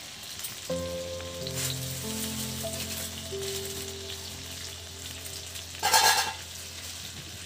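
Chopped garlic frying in butter in a pan over high heat, a steady sizzle, with a louder burst of sizzling about six seconds in.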